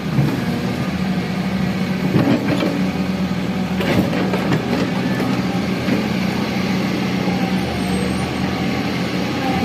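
Excavator's diesel engine running steadily, with a few knocks about two and four seconds in.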